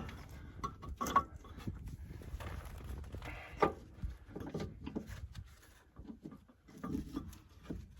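Scattered knocks, clicks and scrapes from working an air-brake S-cam shaft out of a bus's brake assembly to free the slack adjuster, with the sharpest knocks about one second and three and a half seconds in.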